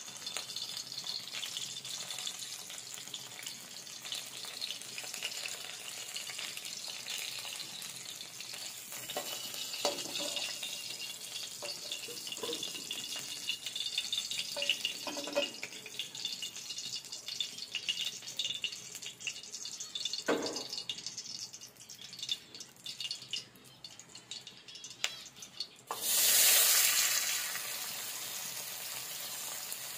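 Oil sizzling steadily in an aluminium kadai as fish fry, with a few knocks of the spatula against the pan. About 26 seconds in, a sudden loud burst of sizzling as chopped tomato hits the hot oil, easing off over the next couple of seconds.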